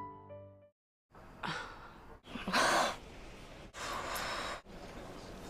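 Piano music cuts off just under a second in. Then comes a run of sharp gasps and heavy breaths from different people, edited back to back with abrupt cuts between them, the loudest gasp about halfway through.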